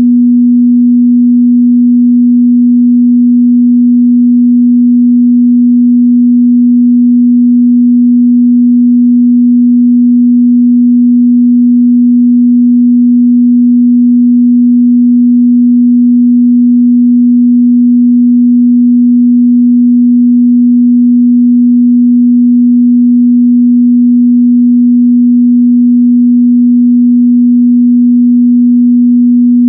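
Pure 243 Hz sine test tone, held steady and loud at one pitch.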